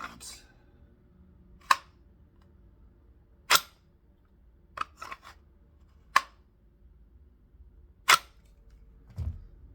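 Glock pistol with a Revelation slide being seated into and drawn from a Black Arch Revcon holster: sharp clicks every second or two as the gun snaps in and out, six in all with one close pair midway. A dull thump comes near the end.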